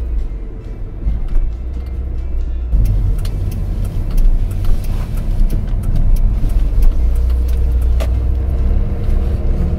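Car driving: a steady low rumble of engine and tyres. About three seconds in it grows louder and hissier, with scattered clicks.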